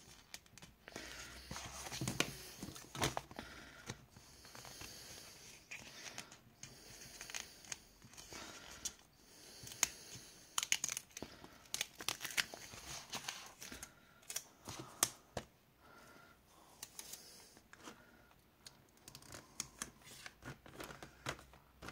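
A sticker being picked at with a fingernail and peeled off its paper backing: irregular small clicks and crackling of paper, in scattered short bursts.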